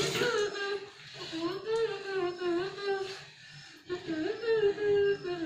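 A child's voice carrying a simple tune in held, wavering notes, with a short break just past the middle.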